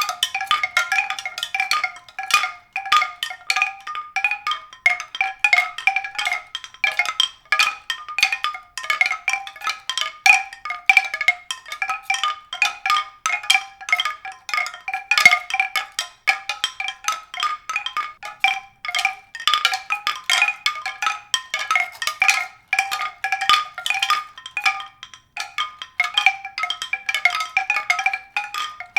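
Mallet-percussion music: a fast, continuous stream of struck, ringing notes.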